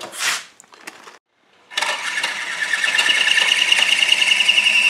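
Large counter-rotating twin-rotor RC helicopter's motor and rotors spinning up about two seconds in: a whine that rises in pitch, grows louder and then holds steady. The rotor head has just been rebalanced by trimming the nut.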